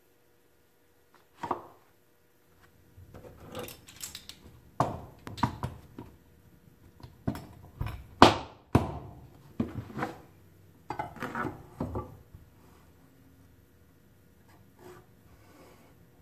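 Pine planks and metal hand tools being handled on a wooden workbench: a run of wooden knocks and metal clatters, with the sharpest knock about eight seconds in. After about twelve seconds there is only faint scraping and handling.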